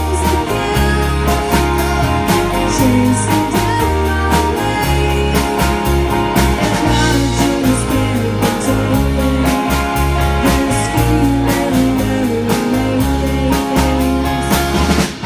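A live band playing with a steady beat: bass notes and guitar, with a singing voice over them.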